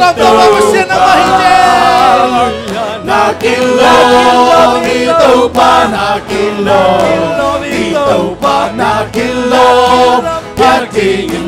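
Live praise-and-worship song: a male lead singer with backing singers, over a church band of drums, keyboard, bass and electric guitar.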